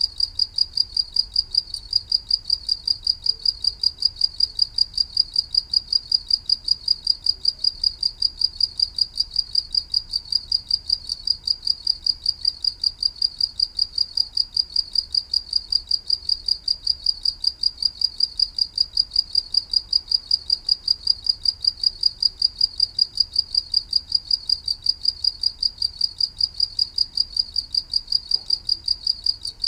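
Cricket chirping steadily: one high-pitched note repeated in even, rapid pulses without a break.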